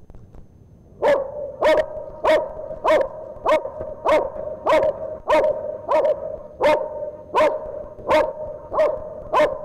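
A dog barking in a steady rhythm, about one and a half barks a second, starting about a second in.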